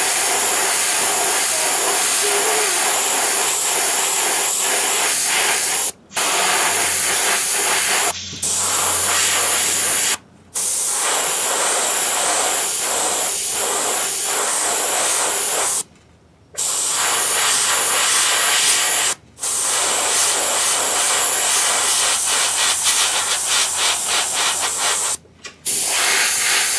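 Airbrush spraying paint: a steady, loud hiss of air and paint, broken off abruptly about six times for a moment each.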